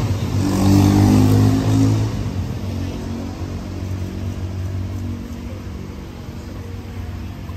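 A motor vehicle's engine revving close by, loudest in the first two seconds, then running on more steadily and slowly fading.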